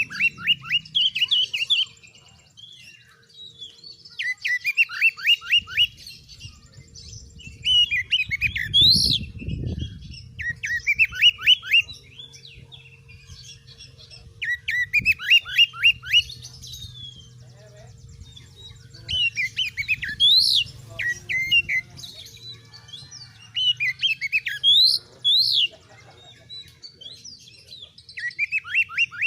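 Oriental magpie-robin (kacer) singing: repeated phrases of quick falling notes, each phrase a second or two long and coming every few seconds, some ending in sharp rising notes.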